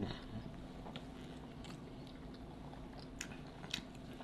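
A person chewing food close to the microphone: faint, irregular wet clicks and smacks of the mouth.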